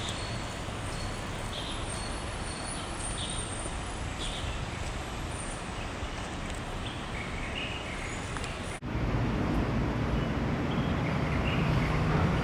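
Steady outdoor background noise with distant traffic, with a few faint high chirps. About nine seconds in it drops out for an instant and comes back louder, with a low steady hum.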